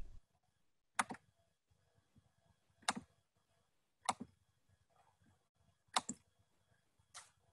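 A violin recording cuts off at the very start, then five single computer clicks, one to two seconds apart, with near silence between them.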